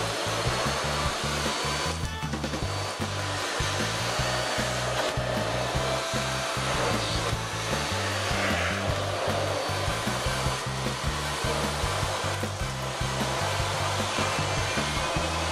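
Miele S2121 Olympus canister vacuum cleaner running, a steady rush of suction and motor noise.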